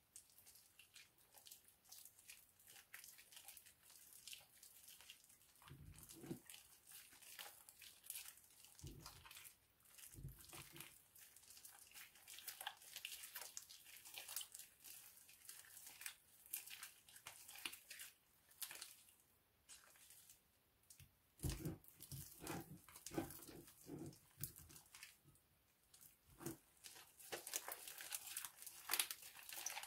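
Hands squeezing, kneading and stretching a sticky glue-and-shaving-foam slime, making quiet, irregular wet crackles and small pops, with a few soft low squelches. The crackling grows busier near the end as the slime is pulled apart.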